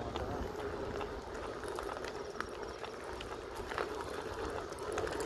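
Electric unicycle riding along: steady rolling noise with a low hum, wind rumble on the microphone and scattered light clicks.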